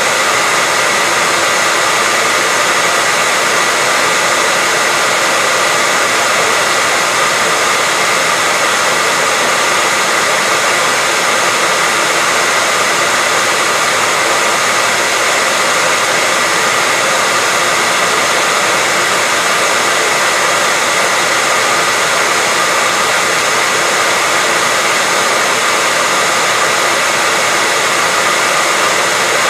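Hair dryer blowing steadily, a constant loud rushing hiss with a faint steady whine, unchanging throughout.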